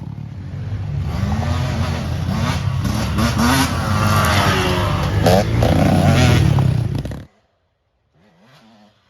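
A motor vehicle's engine running and revving, with clattering, growing louder over several seconds; it cuts off abruptly about seven seconds in.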